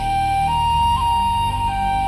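Slow background music: a held melody line that steps up a note about half a second in and back down near the end, over a steady low sustained bed.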